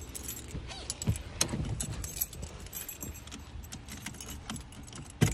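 Car keys jangling with scattered small clicks as the key is readied in the ignition just before the engine is started, with one sharper click near the end.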